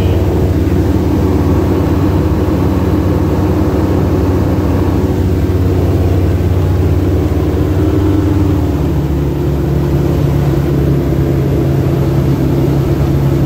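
Single-engine light aircraft's piston engine and propeller running steadily in flight, heard from inside the cockpit. The engine note shifts about nine seconds in, then holds steady again.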